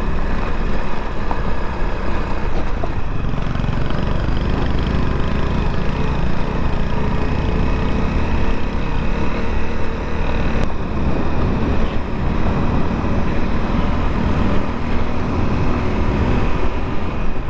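Motorcycle engine running at a steady cruising speed on a dirt track, with heavy wind noise on the microphone.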